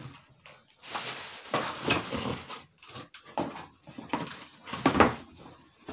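Plastic wrapping and cardboard packaging rustling and crinkling as they are handled, in irregular bursts.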